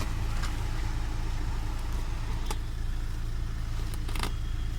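Hyundai Creta idling steadily with a low, even hum, and a few light clicks about two and a half and four seconds in.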